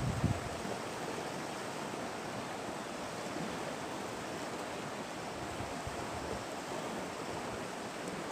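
Steady rushing noise of flowing river water, with a couple of brief low bumps right at the start.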